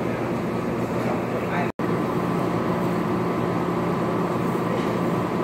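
Steady background din of a crowded livestock sale barn: voices chattering over a continuous hum. It cuts out for an instant about two seconds in.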